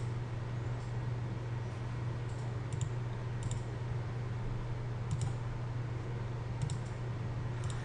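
A computer mouse clicking about five times, short sharp single clicks spread a second or so apart, over a steady low electrical hum.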